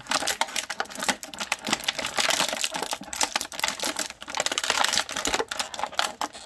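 Thin clear plastic bag crinkling and crackling continuously as hands pull an action figure out of it.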